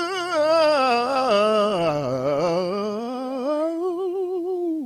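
A man singing solo and unaccompanied into a microphone, drawing out one word of a gospel song in a long melismatic note with strong vibrato. The pitch sags about two seconds in and climbs back.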